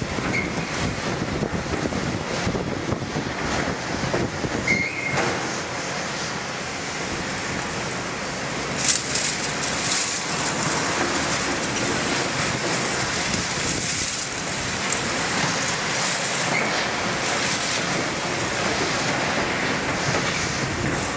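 Heavy demolition excavators handling scrap iron: a continuous din of steel scraping and clanking against rubble and steel. A few brief, high metal squeals cut through it.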